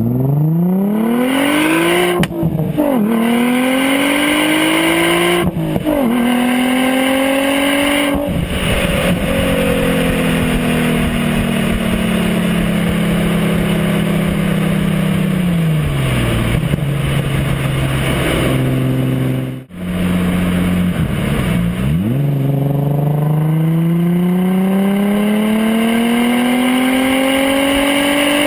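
Audi S4 engine through a custom Borla exhaust, pulling hard under boost. It climbs through three quick upshifts in the first eight seconds, then eases off with the pitch slowly falling. It climbs again steadily from about two-thirds of the way in. On the first pull the boost barely reaches 15 psi.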